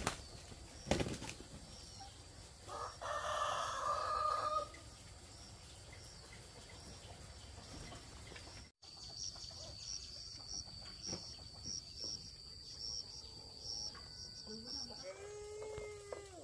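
A rooster crows once, about three seconds in. Later comes a steady high-pitched whine with a regular pulse, and near the end a few short pitched animal calls.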